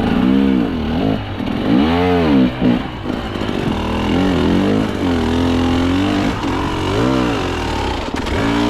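Two-stroke KTM hard enduro dirt bike engine revving up and falling back again and again, the throttle worked in short bursts about every second or so.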